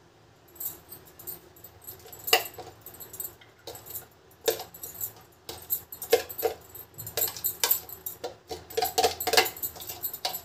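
Clear plastic bowl of a hand-pull vegetable chopper knocked and scraped against a steel bowl while chopped onion is emptied out: irregular clicks and knocks, sparse at first and coming thick and fast from about two seconds in.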